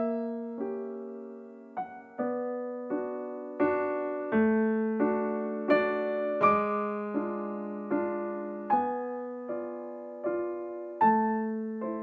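Background piano music: gentle notes and chords struck about every three-quarters of a second, each ringing and fading.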